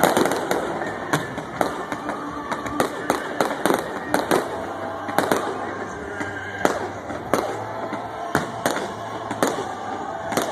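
Aerial fireworks shells bursting with sharp bangs, well over a dozen at irregular intervals, the loudest right at the start.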